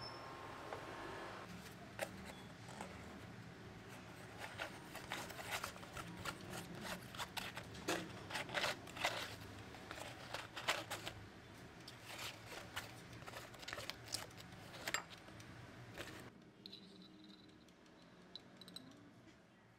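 Close handling sounds: a stick of soft butter squeezed out of its paper wrapper into an enamel bowl, the wrapper crinkling and rustling in a dense run of irregular clicks and crackles. Near the end it turns much quieter as a knife works the butter in the bowl.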